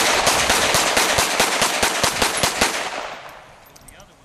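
A rapid string of gunshots on an open firing line, about six a second, with a stainless handgun among them. The shooting dies away about three seconds in.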